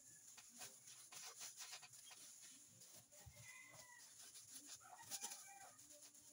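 Near silence: faint rustling of clear plastic gloves and soft handling noise as hands roll dough on a silicone baking mat, with a couple of faint bird calls in the background near the middle and about five seconds in.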